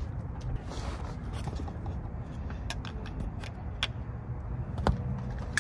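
Scattered light clicks and knocks of a metal bed frame being handled and fitted into a minivan's cargo area, the sharpest near the end, over a steady low rumble.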